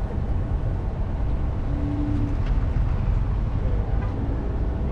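Steady low rumble of parking-lot traffic noise, with a short steady hum about two seconds in.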